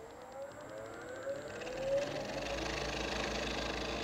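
Wood lathe motor spinning up, its whine rising in pitch over about two seconds, then running steadily while a turning tool cuts a maple ring down to diameter, with a hiss of shavings coming off.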